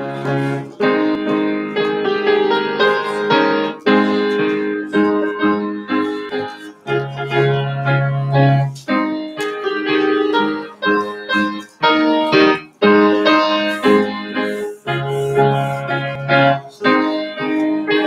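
Piano playing a piece in full chords, with a deep bass note held about every eight seconds.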